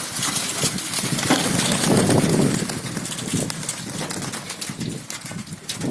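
Domestic pigeons cooing and shuffling, with strong wind gusting on the microphone and scattered sharp taps. The wind swells about two seconds in.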